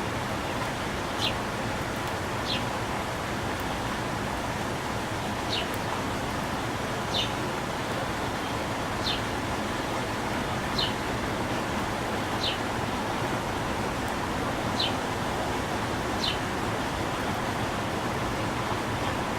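A bird repeating a single short, high chirp that drops slightly in pitch, nine times at intervals of about one and a half to two seconds, over a steady, even rushing background noise.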